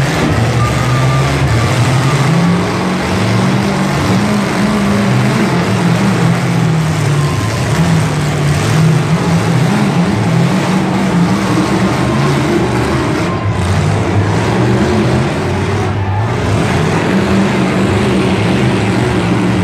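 Demolition derby cars' engines running loud and revving unevenly, their pitch wandering up and down throughout.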